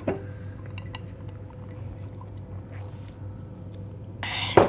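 Steady low hum in a kitchen, with a fainter steady tone above it. Near the end, a short loud rush of noise ends in a sharp knock, the loudest sound here.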